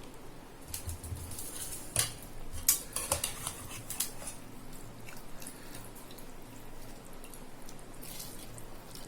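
Soaked biryani rice being tipped into a pressure cooker of boiling mutton masala water, with wet splashes and sharp clinks of a utensil against the pot, the loudest about two seconds in and a cluster soon after, over the steady bubbling of the pot.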